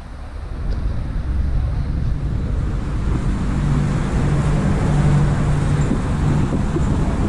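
Street traffic: a motor vehicle driving by on the road beside the sidewalk, its engine hum building over the first few seconds and holding steady, with wind rumbling on the microphone.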